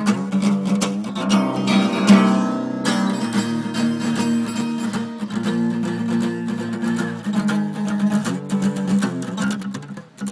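Acoustic guitar being strummed, chords ringing under repeated strokes, with a burst of fast strumming about two seconds in.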